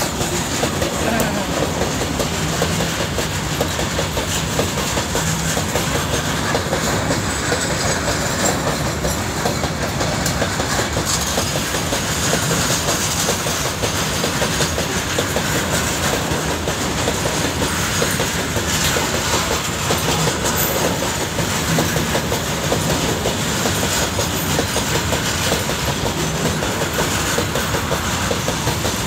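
Freight train of loaded open wagons rolling past at close range, steel wheels running over the rails in a steady, unbroken clatter.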